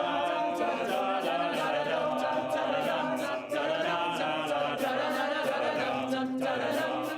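All-male a cappella group singing in close harmony: several men's voices holding and moving through chords together, with a steady percussive beat.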